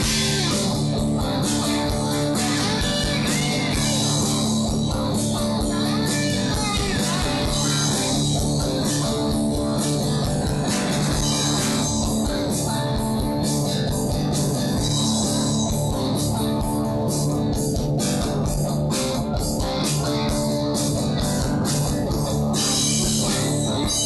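Live rock band playing a guitar-led passage: electric guitars over bass and a drum kit with frequent cymbal hits.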